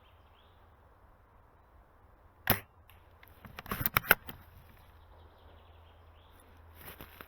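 Airsoft M24 bolt-action sniper rifle firing a single sharp shot, followed about a second later by a quick run of mechanical clicks and clacks as the bolt is worked to chamber the next round.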